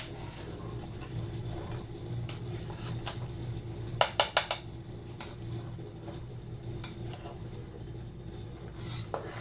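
Metal spoon knocking and scraping against a metal cooking pot while turning over cooked rice, with a quick run of about four ringing clinks about four seconds in. A steady low hum runs underneath.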